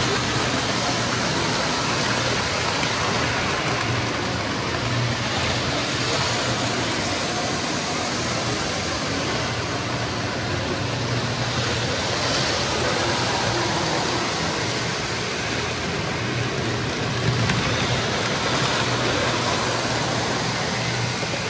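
O-gauge model trains running on Lionel three-rail tubular track: a steady rushing rumble of wheels and motors on the metal rails, with a low steady hum underneath.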